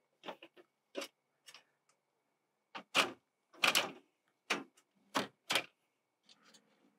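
Aluminium louvred greenhouse intake shutter clicking and knocking against the aluminium greenhouse frame as it is offered up into place: a dozen or so sharp, separate clicks and clacks, the loudest about three seconds in.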